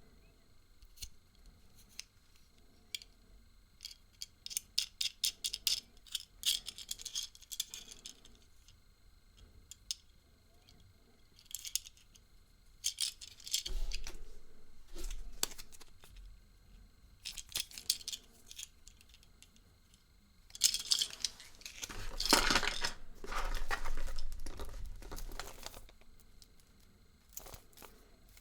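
Hands handling a Kinder Surprise egg and its packaging. A quick run of small plastic clicks and rattles comes first, followed by crinkling and tearing of wrapping that is loudest past the middle.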